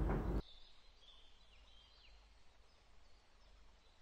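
A louder noise cuts off abruptly about half a second in. After it comes near silence with a few faint bird chirps in the background.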